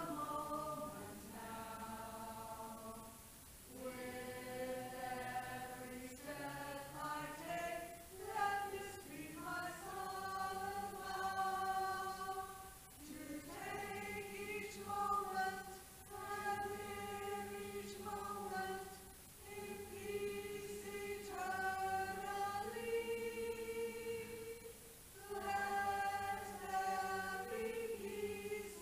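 A choir singing a slow melody together, in phrases of long held notes with short breaks between them.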